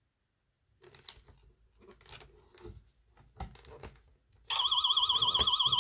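Paper page rustling and crinkling as it is handled, then, about four and a half seconds in, a sound book's electronic button sound: a loud tone warbling quickly up and down, which cuts off after about a second and a half.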